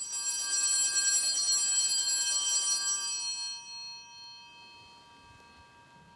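Altar bells rung at the elevation of the host during the consecration: a cluster of small bells shaken for about three seconds, then ringing out and slowly fading.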